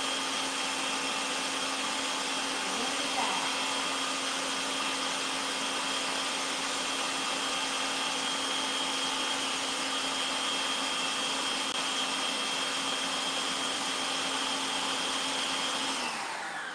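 Electric stand mixer running at high speed, its whisk beating egg whites into a stiff meringue foam: a steady motor whine that is switched off near the end and winds down.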